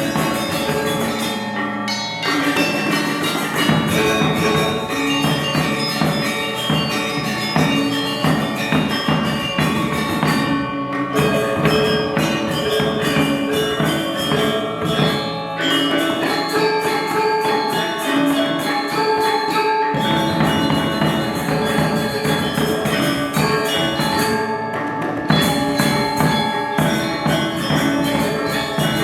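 Balinese gamelan gong ensemble playing: bronze metallophones and gongs ring in fast, dense struck notes over drums, with brief breaks in the texture a few times.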